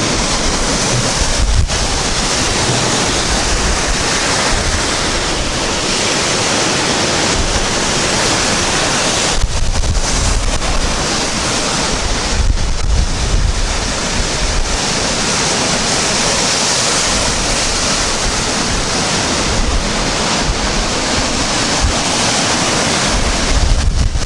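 Rough Baltic Sea surf breaking and washing up a sandy beach after a storm, a continuous rushing wash of waves. Wind buffets the microphone in uneven gusts, adding a low rumble.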